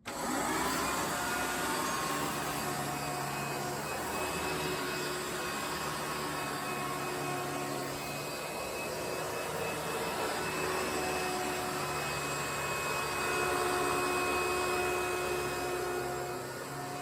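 Hoover Elite Twin Chamber bagless upright vacuum, a 6.9-amp direct-air model, switched on and spinning up, then running steadily: a whine of several steady tones over rushing air, a little quieter near the end.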